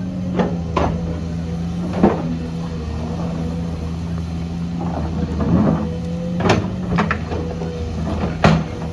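Diesel engine of a heavy earthmoving machine running steadily under work, with sharp knocks and clanks every second or two; the loudest knock comes about eight and a half seconds in.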